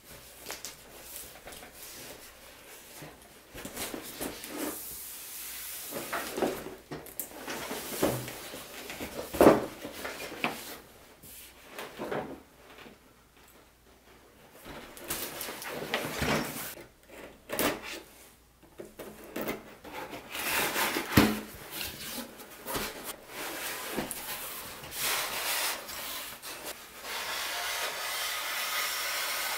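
A cardboard box being handled and opened: scattered rubbing, sliding and scraping of cardboard, with a few sharper knocks. A steady hiss sets in near the end.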